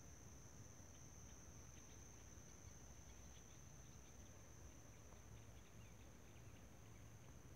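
Near silence outdoors, with a faint, steady, high-pitched insect trill throughout and a few faint scattered chirps.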